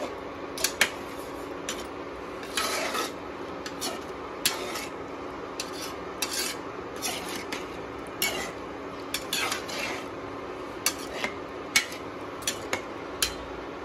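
A slotted spatula stirring potatoes in watery gravy in a pan. It makes irregular scrapes and taps against the pan over a steady low hum.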